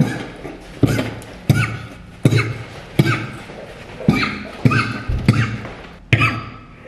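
A man coughing hard again and again, about nine harsh coughs roughly one every three-quarters of a second with a short pause near the middle: a coughing fit after a deep vape hit.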